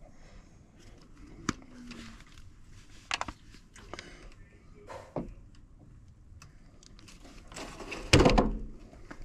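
Scattered clicks and small knocks of hand tools and wire being handled during low-voltage relay wiring, with a louder noisy burst of about half a second a little after eight seconds in.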